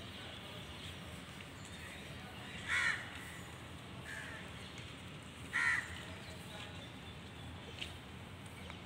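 A bird calling twice: two short, loud calls about three seconds apart, over steady background noise.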